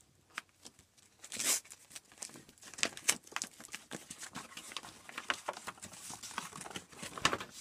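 Brown paper parcel wrapping being torn and crumpled by hand, a run of irregular crackles and short rips as it is pulled off a cardboard box.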